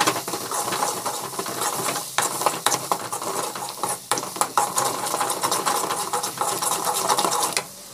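Metal spoon scraping and stirring a thick paste against the sides of a metal kadai in a quick run of short scrapes, with a light sizzle as it cooks.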